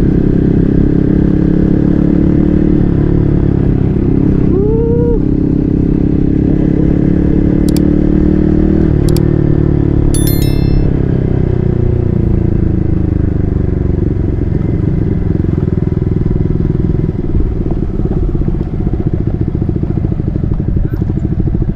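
Yamaha MT-15's single-cylinder engine running through an SC Project full-system exhaust while riding. The engine note holds steady, then drops in pitch as the bike slows, settling into a low, evenly pulsing run in the last few seconds. A few sharp clicks come around the middle.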